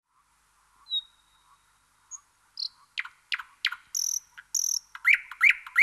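Wild animal calls: a thin whistle about a second in, then sharp chirps sweeping down in pitch from about three seconds on, and quick rising chirps near the end.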